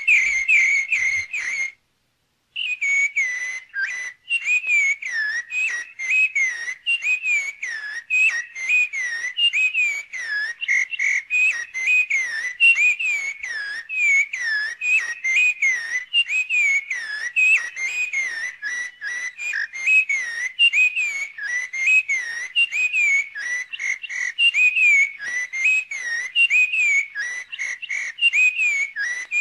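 Rapid whistled chirps, several a second, each a quick up-and-down glide, going on without a let-up apart from a brief break about two seconds in.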